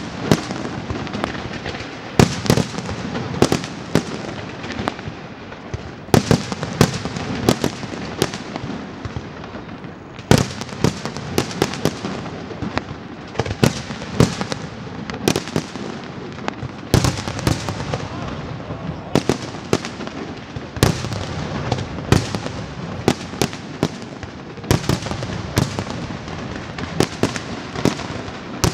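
Aerial firework shells from a Pirotecnia Martí fireworks castle bursting in quick succession, sharp bangs coming every second or so and often in clusters, over a continuous crackle and rumble of smaller effects.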